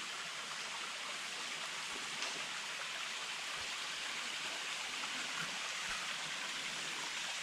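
Steady rush of water from a thin waterfall falling down a rock face.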